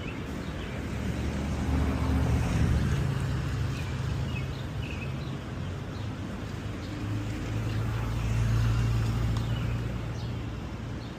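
City street traffic: engines of passing vehicles rise and fade twice, over a steady background hum, with short bird chirps.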